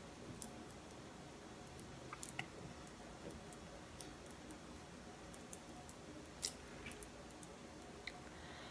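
Faint, scattered small clicks and ticks over a quiet, steady room hiss, with a small cluster about two seconds in and the loudest click about six and a half seconds in.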